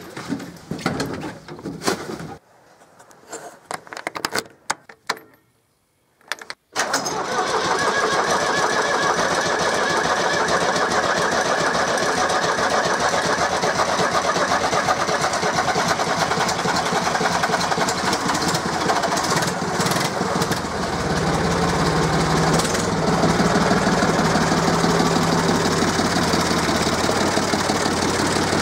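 IHC 633 tractor's four-cylinder diesel engine, started after several seconds of scattered clunks and knocks: it catches suddenly about a quarter of the way in and runs steadily at idle, getting louder and deeper in the low end about three quarters of the way through.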